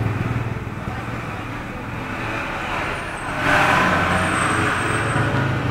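Steady background road-traffic rumble, with a louder vehicle passing about three and a half seconds in.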